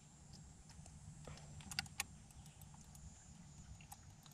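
Very quiet, with a few small sharp clicks from handling a hand-held digital fish scale with a bass hanging on it, over a faint low hum.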